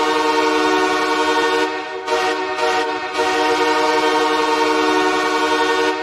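Los Angeles Kings hockey goal horn blowing, a loud steady multi-tone horn chord with reverb added. It sounds in three long blasts with short breaks about two seconds in and about three seconds in.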